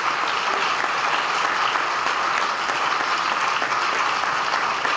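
Conference audience applauding steadily.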